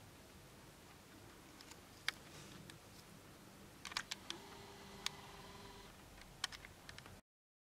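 Scattered sharp clicks and ticks over faint hiss, with a steady tone lasting about a second and a half midway. The sound cuts off suddenly near the end.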